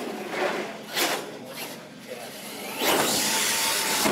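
Radio-controlled monster truck driving and turning on a concrete floor: its motor whine rises and falls with the throttle, and its tyres scrub, loudest near the end.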